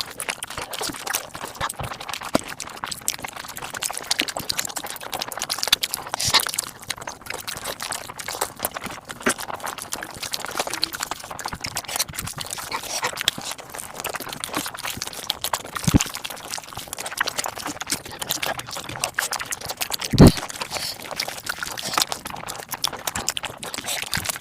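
Close-miked mukbang eating and chewing sounds played back at five times speed: a dense, rapid stream of crunches, wet clicks and smacks. Two short low thumps stand out, the louder one about twenty seconds in.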